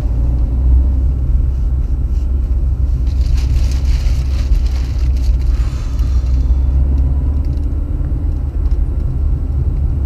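Steady low rumble of a moving car heard from inside the cabin: engine and road noise, with a hiss that swells for a few seconds in the middle.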